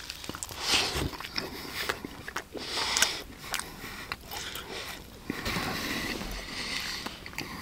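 A man eating chicken wings up close: irregular wet chewing and biting noises with sniffs and breaths through the nose.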